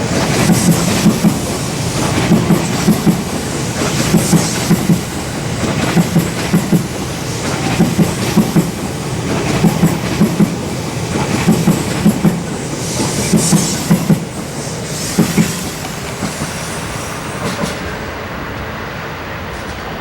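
A passing train's wheels clacking over rail joints in an even rhythm, two quick clicks about every second and a half to two seconds over a steady rumble. The clacks grow weaker over the last few seconds.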